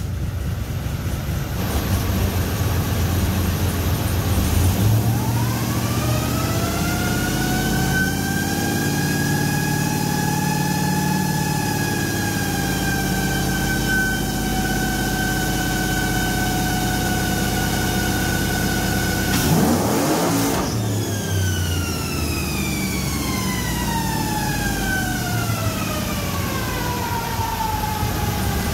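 2006 Trailblazer SS's LS2 V8 running a wide-open nitrous pull on a chassis dyno. A whine rises about five seconds in and holds, a short burst of noise comes about twenty seconds in, and then the whine falls steadily as the run winds down. On this pull the nitrous hard line blew out of the solenoid and sprayed into the air, so the run made little power.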